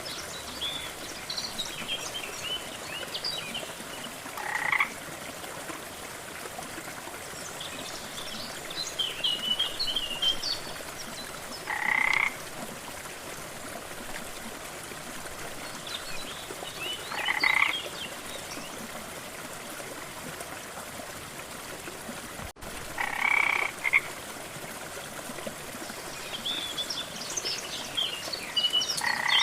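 Frogs croaking over a steady rush of water. A short croak of about two-thirds of a second repeats roughly every five or six seconds, with clusters of higher, quicker chirping calls between. The sound drops out for an instant about three-quarters of the way through.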